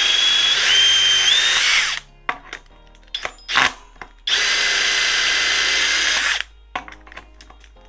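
Cordless impact driver running in two bursts of about two seconds each, with a high whine, straining to turn a drill bit that is jammed in wood. Short clicks and knocks between and after the runs.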